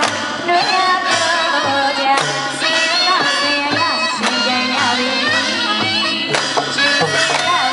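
Traditional Burmese festival music: a shrill wind-instrument melody sliding and bending in pitch over a steady drum beat of about two strokes a second, with cymbal clashes.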